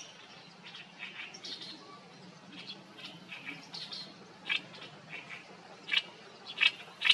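Oriental reed warbler singing: a run of short separate notes, quieter at first and growing louder in the second half.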